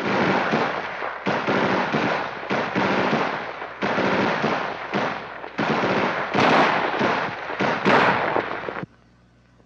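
M16A1 rifle firing on full automatic: several long bursts of rapid shots with brief breaks between them, stopping about nine seconds in.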